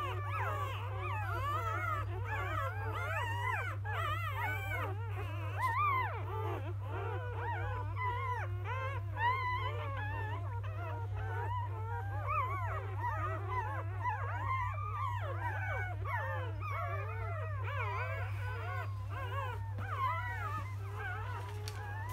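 A litter of newborn Labrador Retriever puppies whimpering and squealing together, many high, rising-and-falling cries overlapping without a break, over a steady low hum.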